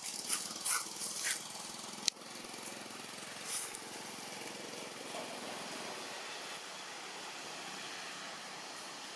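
Steady outdoor background noise, an even hiss, with a few brief sounds in the first second and a half and a single sharp click about two seconds in.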